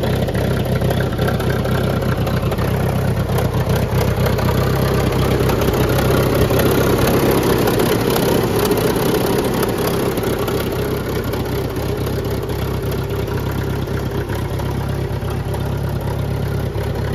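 The four-cylinder engine of a 1931 McCormick-Deering Industrial 20 crawler tractor idling steadily.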